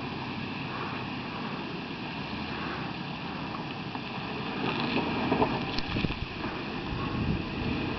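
Chevrolet S-10 Blazer's 4.3-litre V6 running at low speed as the truck crawls up a rocky trail, growing louder as it comes closer. A few short knocks and crunches of tyres over rocks come about five to six seconds in.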